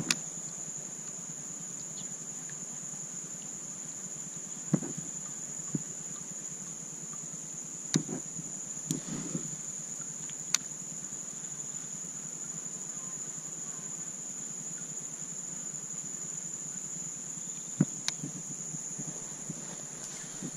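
Steady high-pitched drone of insects calling from the marsh vegetation, unbroken throughout, with a few sharp knocks and clicks of gear handled in a plastic kayak.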